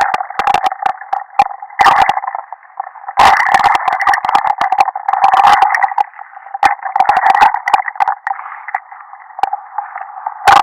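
Added comic sound effect: a continuous buzzing, warbling tone peppered with many sharp clicks, busiest in the first half and thinning out later.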